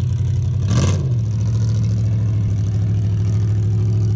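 A vehicle engine idling steadily, with a short rev about a second in.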